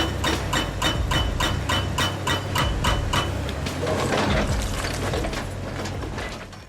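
HK300S hydraulic breaker hammer pounding rock at about four blows a second over the low rumble of its engine. The blows stop about three seconds in, and a rougher, irregular mechanical noise follows and fades out at the end.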